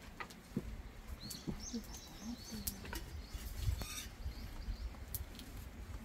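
A small bird chirping, a quick series of short high calls in the first half, with a few light clicks over a low rumble.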